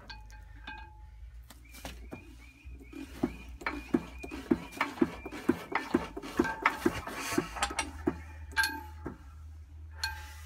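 Imperial Super Diesel single-cylinder hit-and-miss diesel engine turned over by hand, its flywheels spinning, with metallic clanking about two to three times a second. The clanking dies away about eight seconds in.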